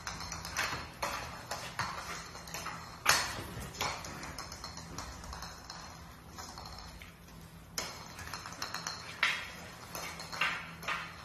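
Scattered knocks and clicks of a plastic toy baseball bat and ball on a concrete floor, the loudest knock about three seconds in, over a faint low steady hum.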